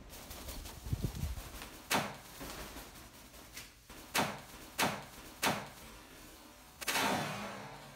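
Blue-and-gold macaw flapping its wings in flight: a series of sharp whooshing wingbeats, three of them about two-thirds of a second apart, and a longer rough flurry near the end.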